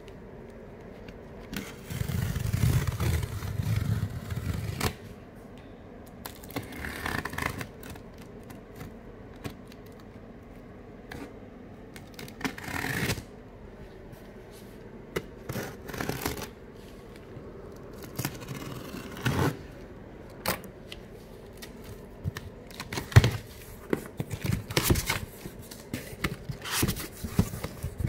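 Scissors cutting and scraping along packing tape on a corrugated cardboard box, then the cardboard flaps being pulled open, with irregular scraping, tearing and sharp clicks and knocks. The densest stretch of scraping comes a couple of seconds in.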